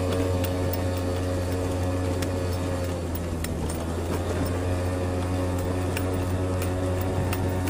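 Small motorbike's engine running at a steady speed while riding, with scattered clicks and knocks from the bike jolting over rough ground. About three seconds in, the engine note wavers for a second or so, then settles again.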